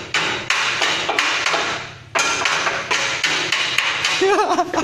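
Hammer blows ringing on metal, struck irregularly a few times a second with a short pause about two seconds in. The blows come from work on a steel folding gate. A brief voice is heard near the end.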